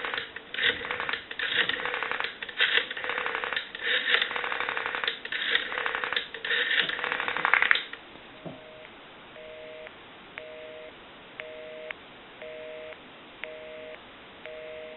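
Rotary dial of a candlestick telephone being dialed over the line, with bursts of rapid clicks for each digit, for about the first eight seconds. Then a busy signal: two steady tones pulsing on and off about once a second, showing the called number is busy.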